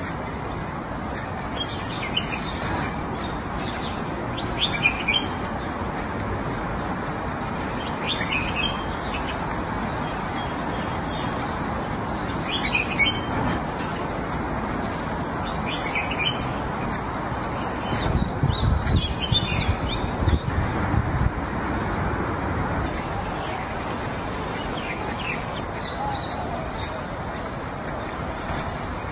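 Small birds chirping now and then over a steady outdoor background hiss, with a run of low thumps about two-thirds of the way through.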